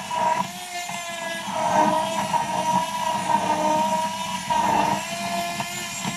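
Handheld stick blender running steadily, blending a pancake-style batter of flour, milk and eggs in a glass jug; the motor's whine wavers in pitch a few times as it works.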